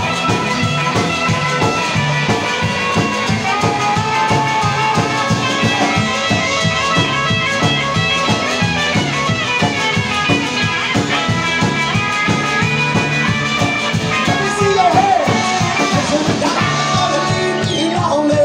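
Live outlaw country-rock band playing a song: upright bass, acoustic and electric guitars, and a drum kit keeping a steady beat.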